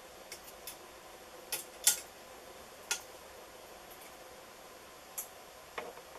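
Scattered small, sharp clicks and ticks of fluorocarbon fishing line and a swivel being handled by fingers while a clinch knot is tied. The loudest click comes about two seconds in.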